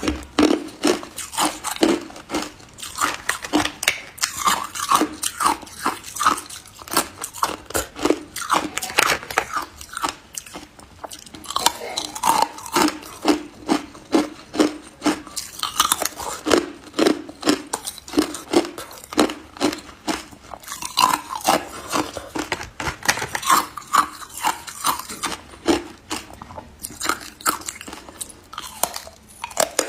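Ice being bitten and chewed: a steady run of sharp crunches, a few a second.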